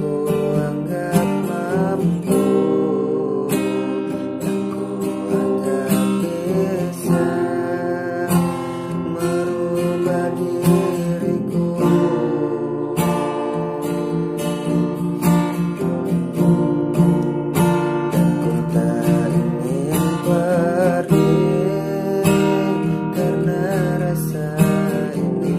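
Acoustic guitar played as a song accompaniment, strummed and plucked chords sounding continuously.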